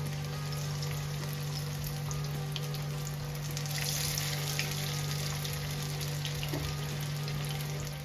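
Batter-coated fish pieces frying in hot oil: a steady sizzle with many small scattered pops.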